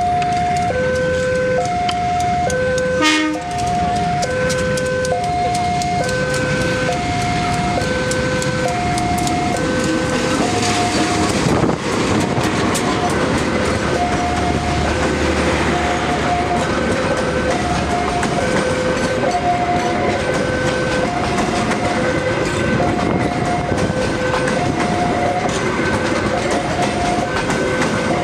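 A level-crossing warning alarm sounds throughout as a steady two-tone alternation, high then low, switching a little under once a second. About three seconds in, a train horn gives a short blast. From about ten seconds, a locomotive-hauled train passes under the alarm, its engine and wheels on the rails growing louder.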